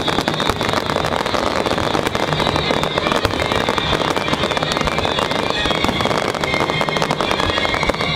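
Large aerial fireworks display: many shells bursting and crackling in quick, continuous succession, a dense, unbroken barrage of bangs and pops.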